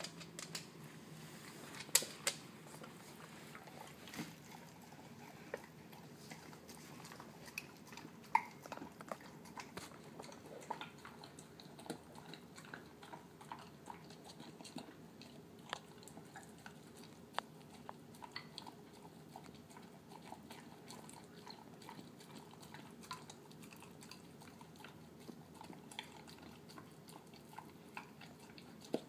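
Terrier-mix dog eating canned wet food mixed with kibble: mushy chewing and biting, with irregular sharp clicks, a few louder ones about two seconds in and around eight seconds in.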